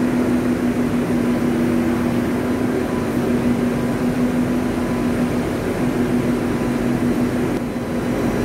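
Cotton-mill blowroom machinery and its air-conveying fans running steadily: a loud, even hum with a strong low drone and a faint higher whine.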